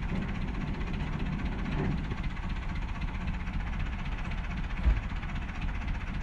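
Truck engine running steadily, with a single dull thump about five seconds in.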